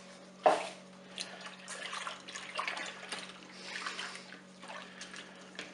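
Liquid cream being poured into the chocolate, egg-yolk and milk mixture, splashing and trickling unevenly. There is a sharp knock about half a second in.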